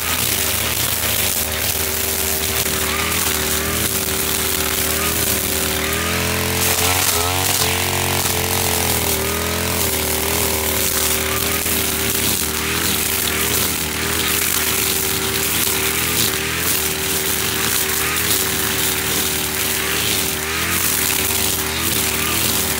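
Husqvarna 542RBS backpack brush cutter's two-stroke engine running at high revs while its 3.5 mm nylon line cuts thick grass. The engine note dips briefly now and then as the line bites into the grass, and wavers about seven seconds in.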